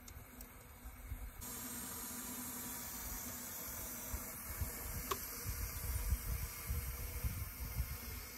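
Steady steam hiss from a half-scale 65 HP Case steam traction engine, coming in about a second and a half in, over a low gusty rumble.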